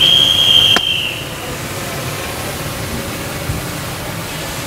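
A whistle blast, one steady high note held for about a second before fading, then a steady background hiss.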